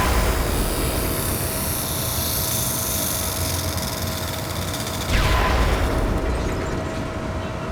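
Two vehicles passing by about five seconds apart, each a loud rush that drops in pitch as it goes past, over a steady hum.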